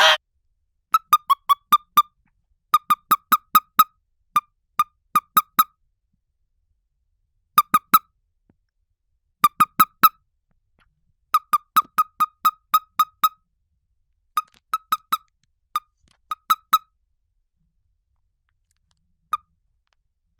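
Common toad squeaking: rapid bursts of short, high chirps, about five a second and a few to eight at a time, with pauses between bursts, thinning to a single chirp near the end. A brief hiss right at the start.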